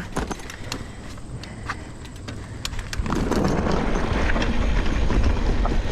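Mountain bike descending a trail: scattered clicks and rattles from the bike, then about three seconds in, a louder steady rush of wind and tyre noise as it picks up speed.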